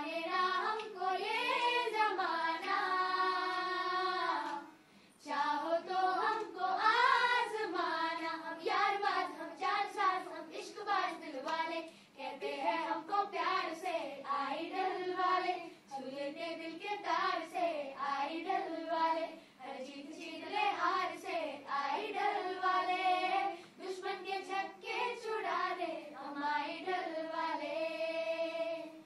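A group of children and a woman singing together without instruments: long held notes and gliding phrases, with short pauses between lines.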